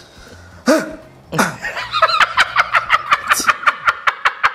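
A man laughing loudly: two short outbursts, then a fast, even run of ha-ha bursts, about five a second, through the second half.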